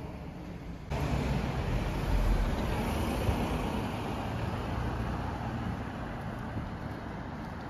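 Street traffic: a car passing close by, its engine and tyre noise loudest about two seconds in and then slowly fading. The sound jumps up suddenly about a second in.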